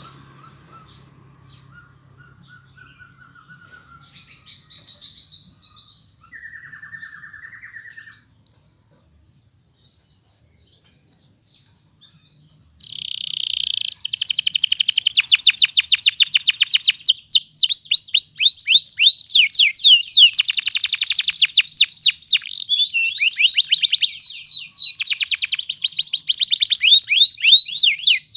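Domestic canary singing: a few soft scattered chirps, a pause of a few seconds, then a short harsh buzzing note and a loud, long run of rapid repeated trills.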